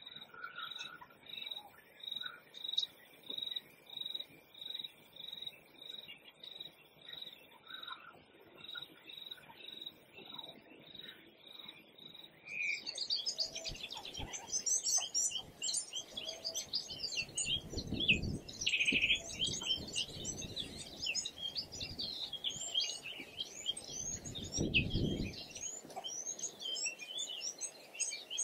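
Wild birds calling: at first one high chirp repeated evenly about twice a second, then about halfway in a dense chorus of many birds chirping and whistling starts suddenly, with two brief low rumbles under it.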